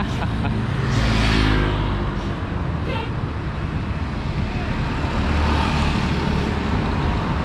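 Road traffic: motor scooters and a van passing close by over a steady low engine hum, the sound swelling as vehicles go past about a second in and again around six seconds.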